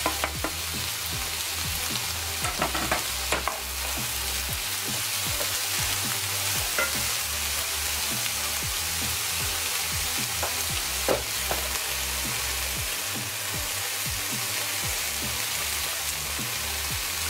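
Stir-fry vegetables (green beans, bell peppers, onion) sizzling steadily in a hot frying pan. A wooden spoon stirs them, with a few short knocks and scrapes against the pan a few seconds in and again near the middle.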